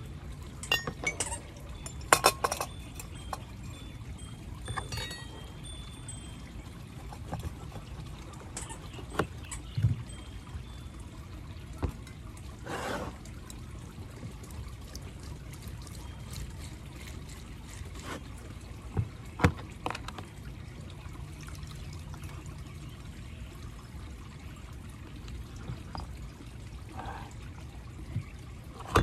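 A stainless funnel-strainer clinking against a glass jar, then grapefruit halves being twisted and pressed on a ceramic hand reamer, with juice pouring and trickling into the jar and a few single knocks.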